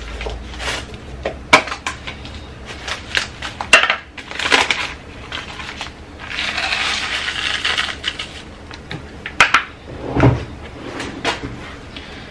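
Food-prep handling of a paper instant-oatmeal packet and a small plastic container: crinkles, clicks and taps, then a dry rustling pour of about two seconds midway, as the oats go into the container. A dull thump near the end, as something is set down on the counter.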